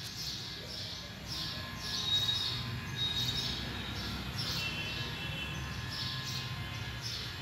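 Small birds chirping in the background, short high calls repeating a few times a second over a low steady hum.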